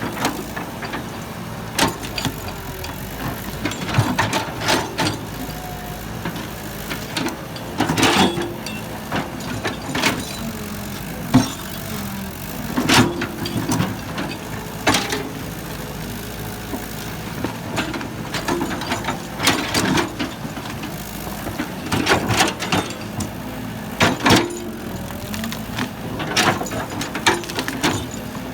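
Heavy construction machinery running steadily, with repeated irregular clanks and knocks, such as a bucket striking and scraping or dumping into a truck bed.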